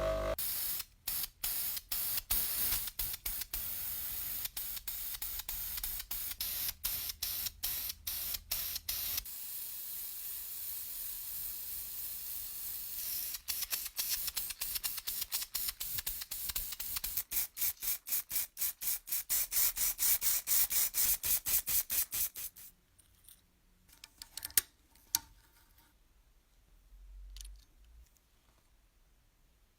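Spray paint hissing in many short repeated bursts, each broken off by a brief gap. The hiss stops about three quarters of the way through, leaving only a few faint clicks.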